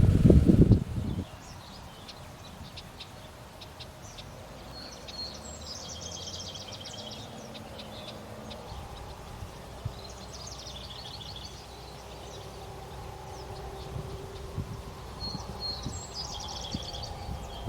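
A bird singing a high, rapid trilled phrase three times, the first and last alike, over quiet outdoor ambience. Heavy low wind noise on the microphone in the first second or so.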